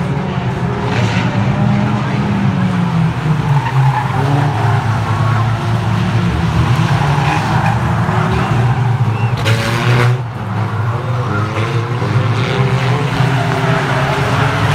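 Several race car engines revving and running together as a pack of battered saloon cars laps a loose-surfaced oval, with tyres skidding. A short burst of noise comes about nine and a half seconds in.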